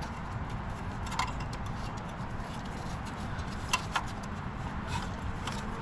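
Faint handling noises as a spark plug wire is worked by feel into a routing groove on an LT1 V8: a few sharp light clicks, one about a second in and two close together near four seconds, over a steady low background noise.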